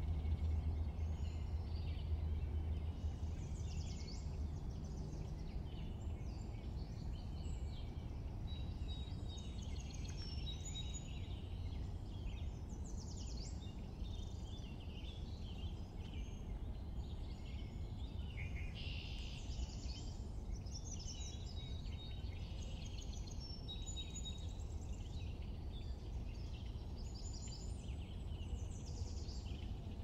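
Several small birds chirping and trilling on and off throughout, over a steady low rumble of background noise that is a little louder in the first few seconds.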